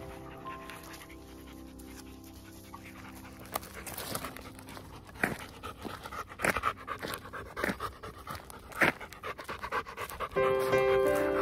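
Bernese mountain dog panting close up, in quick irregular breaths loudest in the middle seconds, over soft background music that swells near the end.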